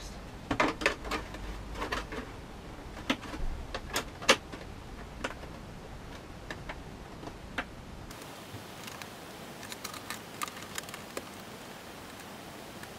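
A hard plastic stormtrooper helmet being handled and turned over: scattered light knocks and clicks of plastic, the sharpest about four seconds in, then a few fainter clicks later on.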